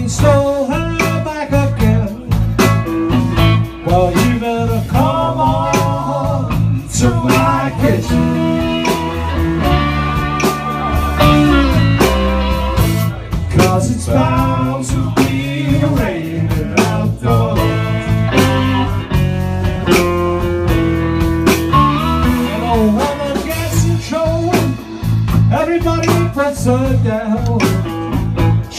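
Blues band playing with a slide guitar lead, its notes gliding up and down over bass and drums.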